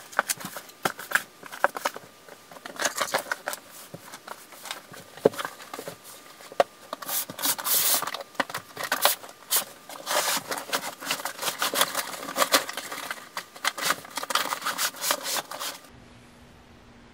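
Rummaging through storage bins: irregular rustling, scraping and knocks as fabric cubes and a plastic tote are pulled out and searched. It stops abruptly near the end, leaving quiet room tone with a faint steady hum.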